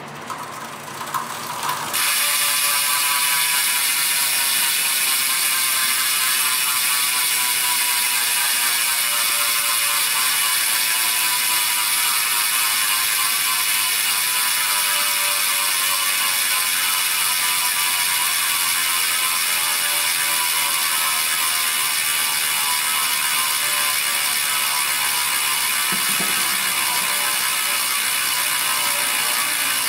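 Campagnolo Bora Ultra 80 rear hub freewheeling: a steady, rapid ratchet buzz from the pawls as the wheel coasts. It starts in full about two seconds in, and the pitch slowly falls as the wheel slows.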